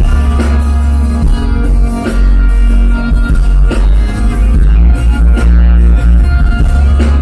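Rock band playing live, loud: acoustic and electric guitars over bass and drums, recorded from the audience.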